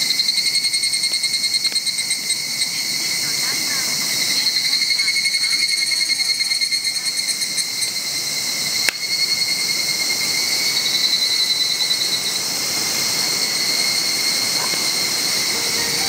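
Steady chorus of insects chirring on two high pitches, with a single sharp click about nine seconds in. Music comes in faintly near the end.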